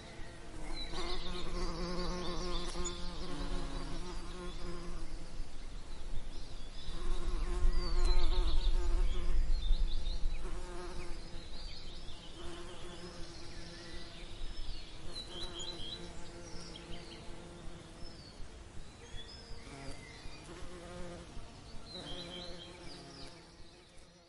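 Honeybees buzzing close by while foraging, the buzz swelling and fading as bees fly near and away, loudest about a third of the way in. Birds chirp in the background.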